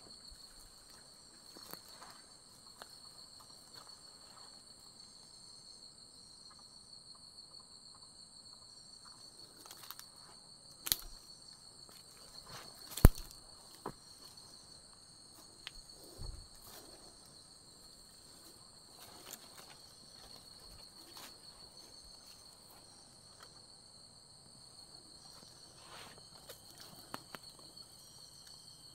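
Insects trilling steadily on one high pitch, with scattered faint clicks and two sharp clicks about eleven and thirteen seconds in, the second one the loudest sound.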